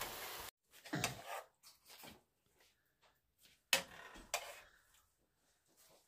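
A spoon scraping and knocking against a steel pot as steamed vegetables are scooped out onto a plate: a few short clinks about a second in and again near four seconds.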